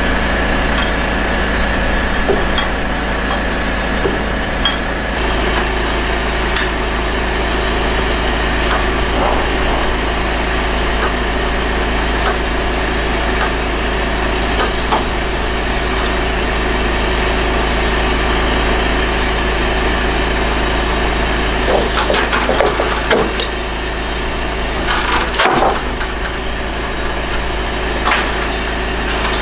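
An engine idling steadily, with scattered metallic clanks and rattles of heavy lashing chains being handled, bunched into a few clusters near the end.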